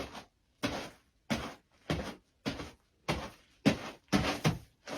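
Footsteps, each a short scuffing thud, about one every two-thirds of a second, coming a little faster near the end.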